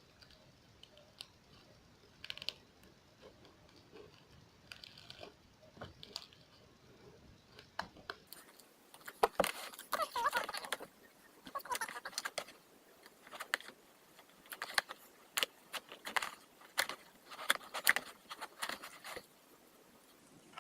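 Slime being squeezed and stretched by hand, making scattered faint clicks at first, then from about eight seconds in dense crackling and many sharp pops as air bubbles in it burst.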